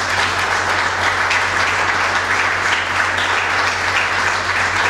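Audience applauding steadily, the many hands clapping together at an even level.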